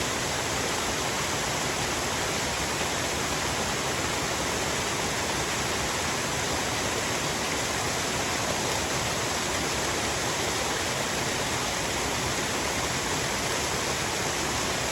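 Waterfall: a steady, even rush of falling water that never lets up.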